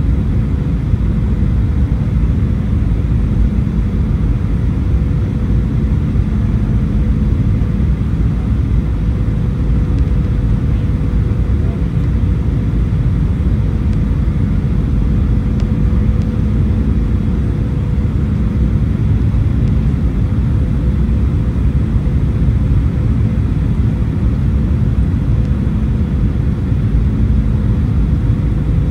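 Steady cabin noise inside a Boeing 737-800 descending on approach: a loud, even low rumble of its CFM56-7B turbofans and the airflow, with a thin steady hum above it.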